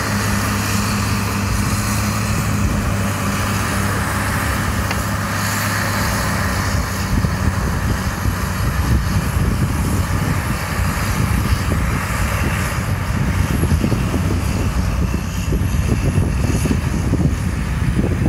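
Large tractor's diesel engine running steadily under load as it tows a boat on its trailer up a gravel beach. The engine hum holds for the first six or seven seconds and then grows fainter as it pulls away, while an uneven low rumble, like wind buffeting the microphone, takes over.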